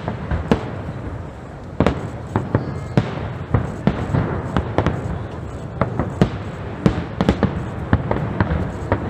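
Aerial firework shells bursting in a dense, irregular barrage of sharp bangs, several a second at times, over a continuous rumbling crackle.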